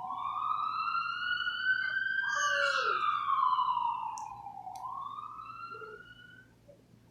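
Recorded emergency-vehicle siren played over a sound system, in a slow wail that rises, falls and rises again before fading out near the end.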